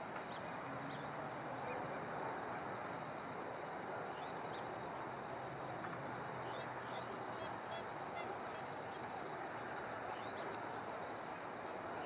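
Steady outdoor background noise with faint, scattered high-pitched chirps of small birds, including a quick run of chirps about two-thirds of the way in. Distant geese honk faintly in the first half.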